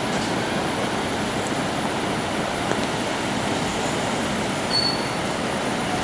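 Steady rush of falling water, an even unbroken noise. A brief high whistle sounds just under five seconds in.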